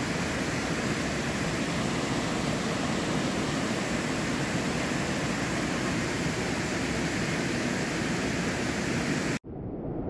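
Steady rushing of a waterfall and its stream pouring into a rock pool. About nine seconds in it cuts off abruptly and a duller, quieter rushing follows.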